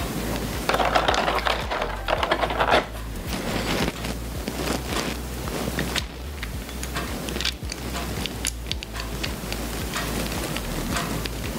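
Small clicks and taps of an action figure's gold armour pieces being handled and pressed onto the figure. There is a louder, denser rustling stretch from about one to three seconds in.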